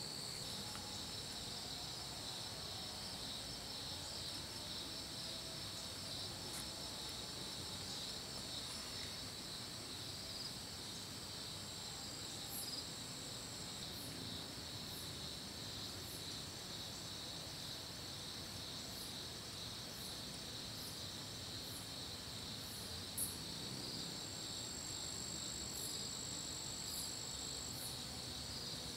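Night-time insect chorus: a steady high trilling, with short, very high chirps repeating about once a second through the second half, and one brief louder tick late on.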